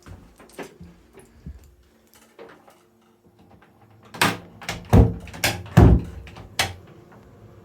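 A few light clicks, then a run of about six sharp knocks over two and a half seconds, two of them with heavy thuds.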